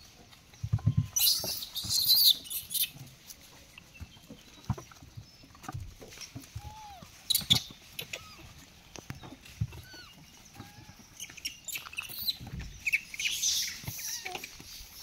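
Macaques moving about and feeding on mangoes: scattered taps and knocks, bursts of rustling near the start and near the end, and a few short chirping calls in between.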